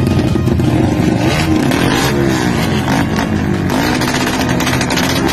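Modified drag-racing motorcycles revved hard through their racing exhausts. Several engines run loudly together, their pitch rising and falling again and again.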